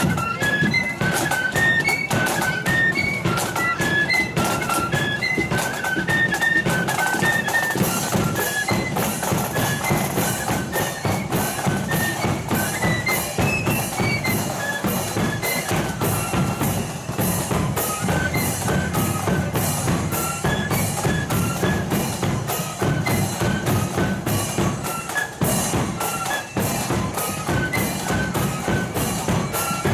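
A marching flute band playing a tune: a melody of short notes on many flutes in unison over a steady, regular drum beat.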